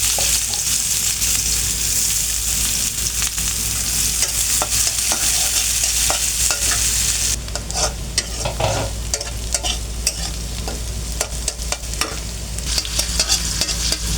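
Food frying in hot oil in a cooking pan, sizzling loudly, with a spatula stirring and scraping against the pan. The sizzle eases about halfway through, leaving scattered clinks and scrapes, and swells again near the end.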